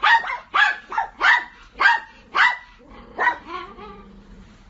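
A dog barking in a quick series: about six loud barks roughly half a second apart, then a couple of fainter ones.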